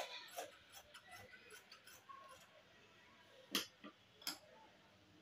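Dressmaking scissors snipping through a length of fabric, a run of faint clicks, then two sharper clicks less than a second apart.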